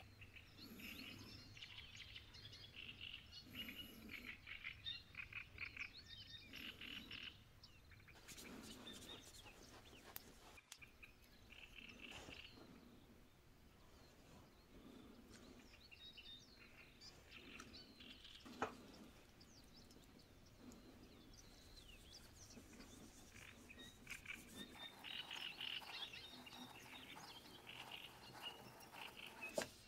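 Faint ambient nature soundscape of small birds chirping in short clusters, with one sharp click about two-thirds of the way through.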